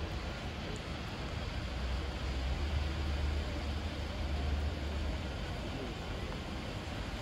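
Steady low vehicle rumble that swells slightly a few seconds in, then eases.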